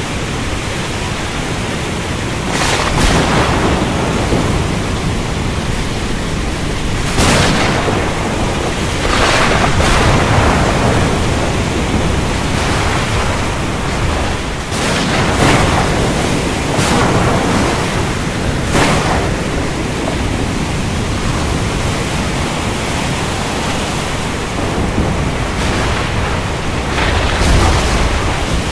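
Thunderstorm with steady heavy rain hiss, broken by about a dozen sharp cracks of thunder, some coming in quick pairs, each followed by a low rumble.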